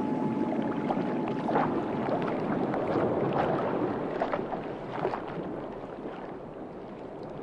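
Water sloshing and splashing at the sea surface, with scattered brief splashes, fading toward the end.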